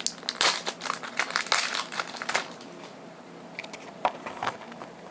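Foil wrapper of a Pokémon card booster pack crinkling and crackling as it is handled and opened. The sound is busiest for the first two and a half seconds, then there are only a few scattered crackles.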